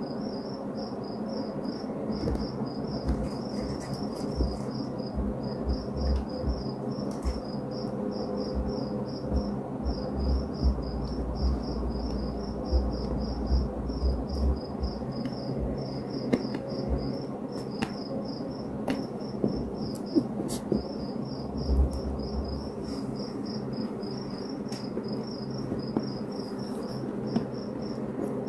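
Steady insect-like chirping, a rapid train of short high pulses at several a second that never stops, over an on-and-off low rumble. Scattered light clicks and taps come through it.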